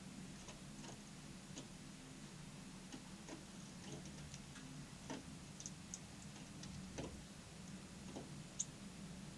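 Irregular light clicks and taps, a few each second, over a low steady hum, with a couple of short high-pitched notes, the sharpest near the end.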